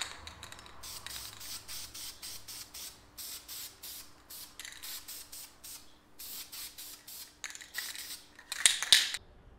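Aerosol spray paint can sprayed onto a small hanging bracket in a quick run of short hissing bursts, with a longer burst near the end.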